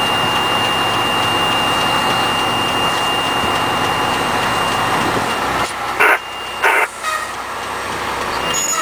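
Fire rescue truck heard from inside the cab while driving: steady engine and road rumble, with a faint steady high tone above it. About six seconds in come two short, loud bursts about half a second apart, and the rumble then drops lower as the truck eases off.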